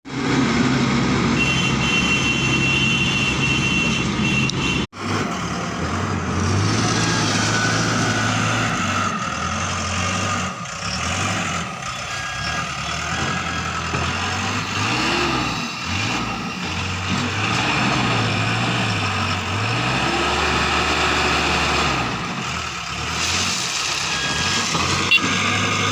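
A Caterpillar construction machine's diesel engine runs, its pitch rising and falling as it works under changing load. A steady high tone sounds over the first few seconds, and the sound drops out sharply for a moment about five seconds in.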